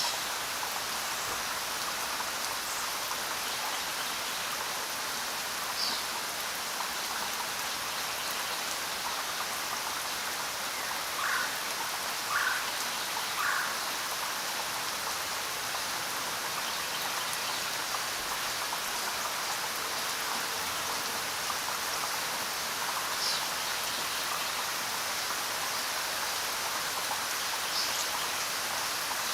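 Steady rain falling, an even hiss. Near the middle, three short, slightly louder drop-like pops about a second apart stand out.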